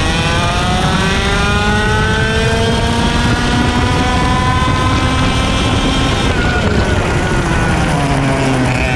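IAME X30 125cc two-stroke kart engine at full throttle, its pitch climbing steadily for several seconds down a straight. About six seconds in the revs fall away as the kart slows for a corner, then climb again near the end as it accelerates out.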